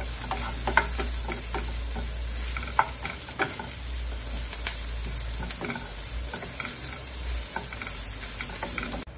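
Chopped onions, garlic, ginger and green chillies sizzling in oil in a non-stick frying pan while a wooden spatula stirs them, with scattered short scrapes and taps of the spatula against the pan. The sizzle breaks off abruptly near the end.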